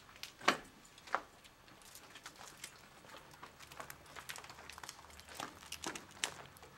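Footsteps crunching over debris and broken plaster on a derelict hospital floor: a run of irregular crackles and crunches, with two louder crunches in the first second or so.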